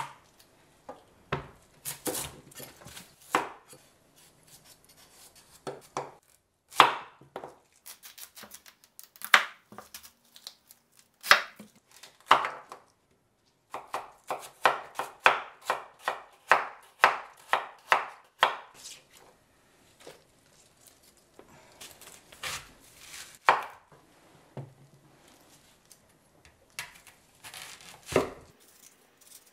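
Chef's knife chopping Korean radish on a wooden cutting board: sharp knocks of the blade against the board, irregular at first, then a quick even run of about three a second midway. Near the end the knife cuts through a Korean pear.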